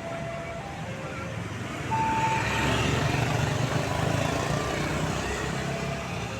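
Tour bus running past with short notes from its basuri musical horn; the clearest, highest note sounds about two seconds in, as the engine grows louder.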